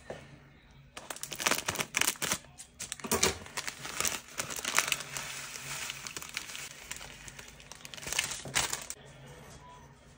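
Thin plastic bag crinkling and rustling in the hand as dried stuffing mix is tipped out of it in irregular crackles. The crackling eases off near the end.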